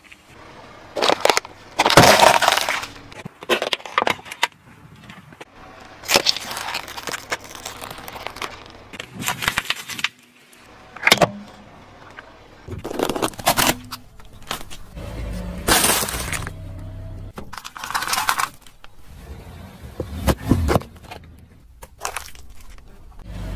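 Car tyre rolling over and crushing brittle objects, such as stacked wafer ice-cream cones, on asphalt. About a dozen separate sharp crunching and cracking breaks, some with a low rumble of the tyre under them.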